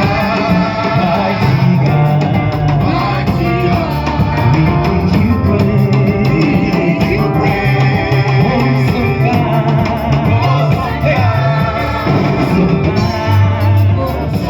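Live praise and worship music: a church band playing with singers, a strong bass line running under the sung melody.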